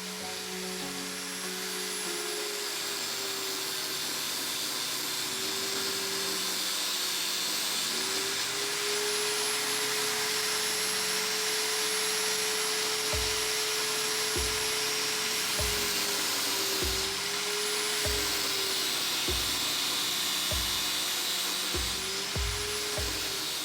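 Electric power tool motor running with a steady high whine, its pitch sagging briefly under load a few times. Low thumps come at uneven intervals through the second half.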